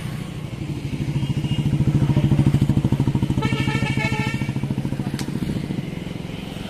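A motorcycle engine passing close by, growing louder over the first two seconds or so and then fading away.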